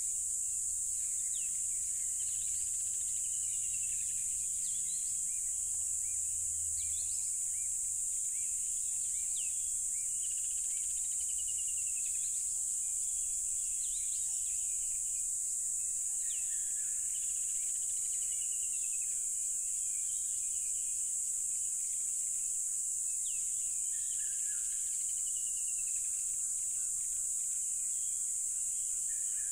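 Loud, steady chorus of crickets: an unbroken high-pitched trill. Birds call now and then over it in short chirps and falling whistles.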